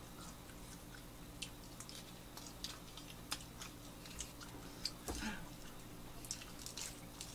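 Faint mouth sounds of someone chewing a buttered toast sandwich with lettuce: scattered small clicks and smacks, with one slightly louder sound about five seconds in.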